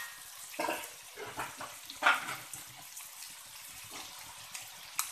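A slotted metal spatula scraping and knocking against a wok as chicken feet are stirred: a handful of short scrapes, the loudest about two seconds in and another near the end, over a faint steady hiss.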